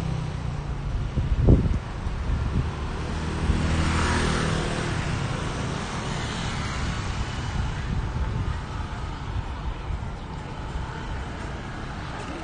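Street traffic noise with a steady low rumble. A vehicle swells past about four seconds in, and there is a brief low thump about a second and a half in.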